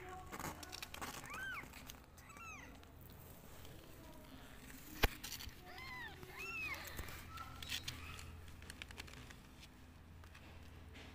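Newborn kittens mewing: short, high-pitched mews that rise and fall, about three in the first two and a half seconds and a few more about six seconds in. A single sharp click about five seconds in is the loudest sound.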